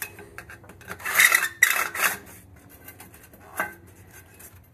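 Metal scraping and clinking as a hand tool works on a copper water pipe: two scraping bursts about a second in, then a single sharp click.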